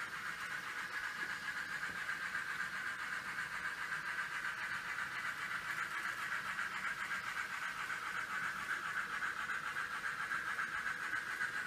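N scale model trains running on the layout's track: a steady high whine with a fine rapid flutter.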